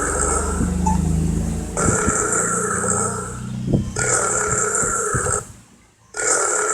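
Long, low belch from a cartoon character, followed by further weaker belching; the sound cuts out briefly near the end.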